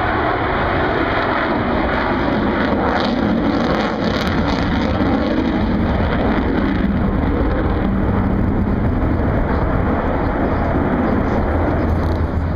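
Avro Vulcan bomber's four Rolls-Royce Olympus turbojets, a steady jet rumble as the aircraft flies away.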